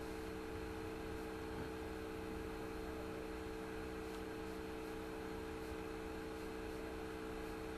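Steady hiss with a constant low electrical hum: room tone.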